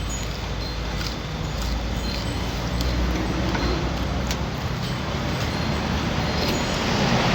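Road traffic: a vehicle engine running with a low steady hum under a hiss of road noise, with a few light clicks; it gets louder near the end.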